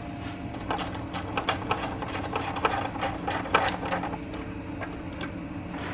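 Hand ratchet clicking in irregular runs as a 10 mm bolt is loosened.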